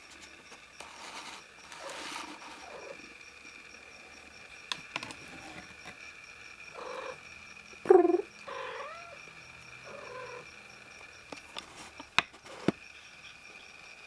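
A young litter of kittens with their mother cat, giving a handful of short mews with sliding pitch between about seven and ten seconds in, the loudest around eight seconds. A few sharp clicks come near the end.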